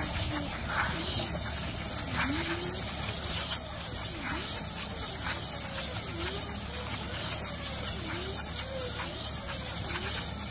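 Tractor-mounted Tanco bale wrapper turning as it wraps a square bale in stretch film, over the steady running of the tractor engine. A steady high hiss sounds throughout, with a faint whine that rises and falls about once a second and light clicks as it turns.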